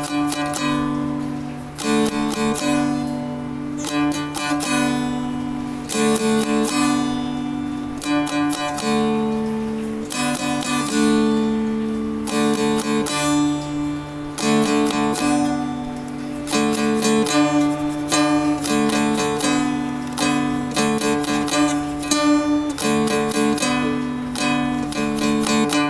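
Seagull Merlin, a fretted dulcimer-style instrument, picked in a slow melody of single plucked notes over a steady low drone.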